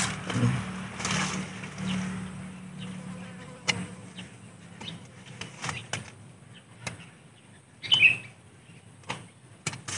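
Red-handled pruning shears snipping and nibbling at a sawn branch stub on a sancang bonsai, tidying the saw cut: a series of sharp clicks about half a second to a second apart, the loudest about eight seconds in with a short high chirp.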